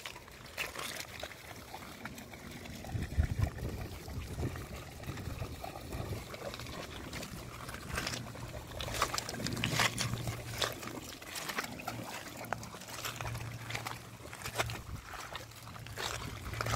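Groenendael shepherd dogs wading and trotting through shallow river water: scattered splashes and trickling water, the biggest splashes about three seconds in and again around eight to ten seconds in.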